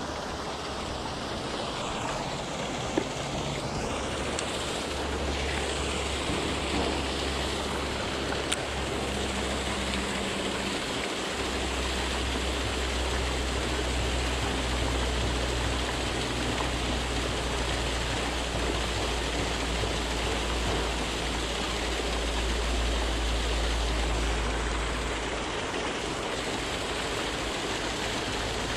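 Steady rushing, splashing water with a low hum underneath, and two brief clicks.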